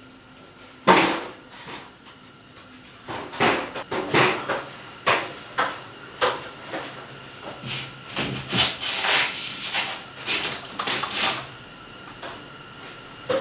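Irregular knocks, clicks and scrapes from hand work on a drywall sheet hung on rope ratchets and on an aluminium stepladder, with the sharpest knock about a second in and a busier run of clicking and scraping later on.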